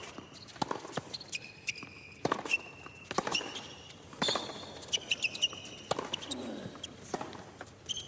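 Tennis rally on a hard court: a ball struck back and forth by racquets, with sharp pops about every second, and tennis shoes squeaking briefly on the court surface between the shots.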